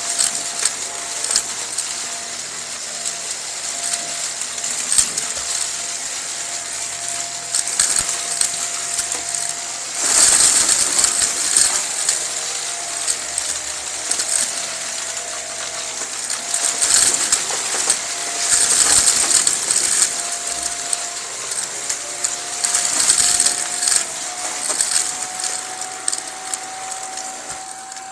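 Upright vacuum cleaner running on a rug, its motor a steady whine that climbs slightly near the end. Repeated bursts of rattling and crackling come as it sucks up scattered colourful crunchy debris.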